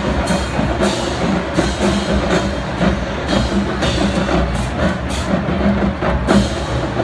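College marching band playing in a stadium, drums striking a strong beat under the band.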